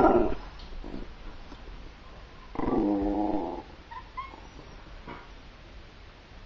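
A cairn terrier gives a drawn-out, whining grumble lasting about a second, near three seconds in. The tail of an earlier, louder call ends just after the start. A few faint high chirps follow at about four seconds.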